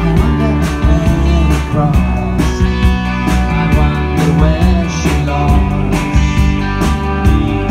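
Live rock band playing: electric guitar over a drum kit beaten with sticks, with a steady pulse of drum hits.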